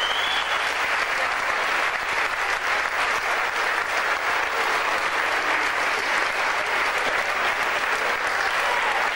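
Large crowd applauding steadily with dense, continuous clapping.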